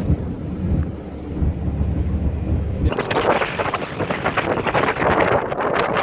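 Wind buffeting the microphone from the open window of a moving car: a low rumble at first, changing abruptly about three seconds in to a louder, hissing rush of wind.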